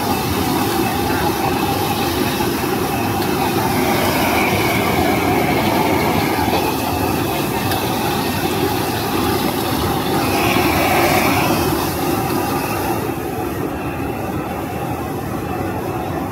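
Steady roar of a stir-fry stall's wok burner and cooking, with a thin high squeal twice, about four seconds in and about ten seconds in; the hiss thins out near the end.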